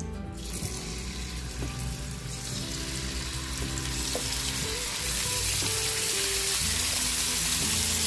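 Marinated chicken pieces sizzling as they are laid one after another into hot cooking oil in a frying pan to sear. The sizzle grows louder as more pieces go in.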